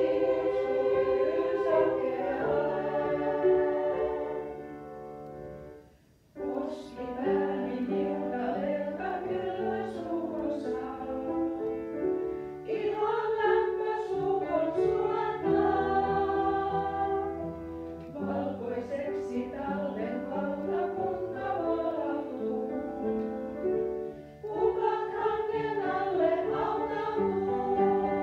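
Choir singing in several parts with piano accompaniment. The music breaks off for about a second near six seconds in, then carries on.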